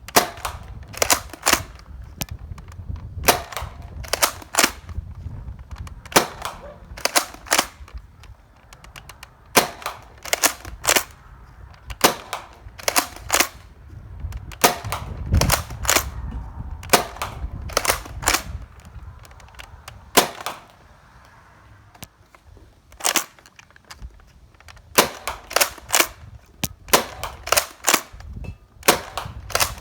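Nerf Rival Takedown foam-ball blaster being fired again and again: sharp snaps, often in quick pairs a fraction of a second apart, with a pause about three quarters of the way through.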